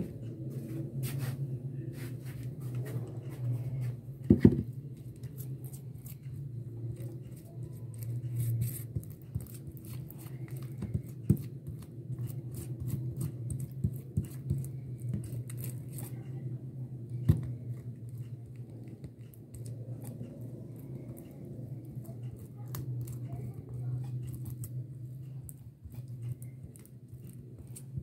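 A metal spoon spreading thick creamy sauce over a paratha, with soft scrapes and many small clicks and taps and a few louder knocks, over a steady low hum.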